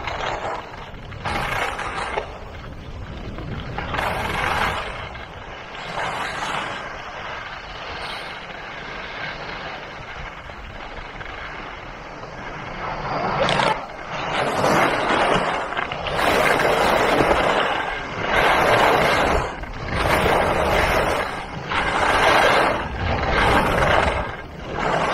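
Skis scraping over groomed snow on a downhill run. A quieter even rushing at first, then from about halfway through a loud hiss of snow swelling with each turn, about every one and a half to two seconds.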